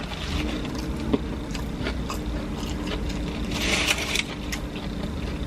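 Mouth noises of chewing fried fast food, small clicks and one louder crunchy bite about two-thirds through, over a steady low hum.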